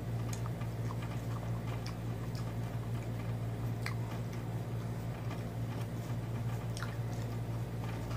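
A man chewing food and eating by hand from a plate, with faint scattered clicks, over a steady low hum.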